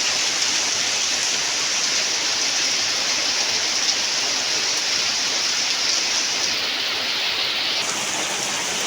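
Heavy rain pouring down steadily in a downpour.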